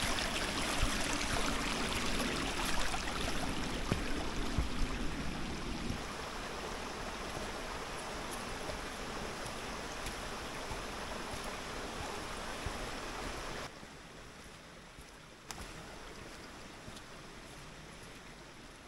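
Small woodland brook rushing over stones, a steady water noise. It steps down in loudness twice, about six seconds in and again around fourteen seconds in.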